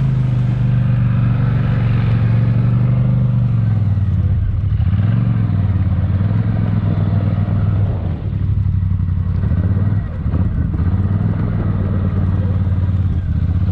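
Big-bore ATV engine running hard, its pitch dipping and climbing again a few times as the throttle is worked.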